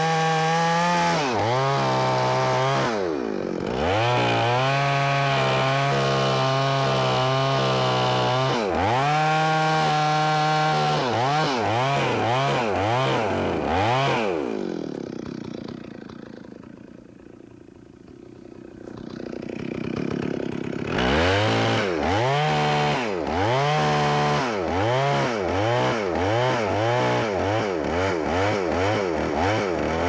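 Two-stroke chainsaw making the back cut through a standing tree, its engine revving up and down over and over as the throttle is worked. About midway it falls back to a quiet idle for several seconds, then revs up again and carries on cutting.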